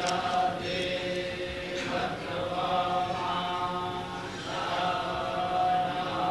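A group of Vedic pundits chanting in unison, several male voices holding long sustained phrases, with short breaks for breath about two seconds in and again past four seconds.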